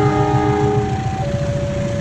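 Indonesian train's air horn sounding the semboyan 35 signal: a chord of notes gives way to a single steady note just over a second in, over the low rumble of the train.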